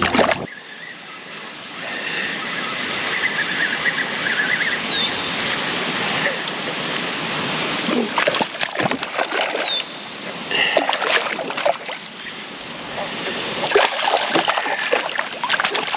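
Water splashing and lapping at the side of a fishing kayak, with scattered short clicks and knocks that come in clusters about halfway through and near the end.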